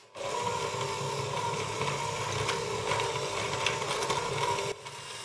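Electric hand mixer running steadily, its beaters creaming butter with powdered sugar in a glass bowl, with a few faint ticks. The sound drops quieter near the end.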